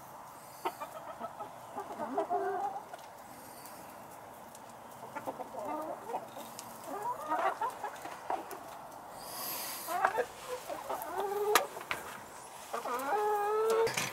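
Chickens clucking, a scattered series of short calls, with one longer, drawn-out call near the end.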